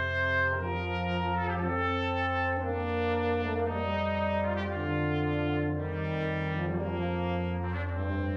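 Brass ensemble music: slow, sustained chords that change about once a second over a held low bass note.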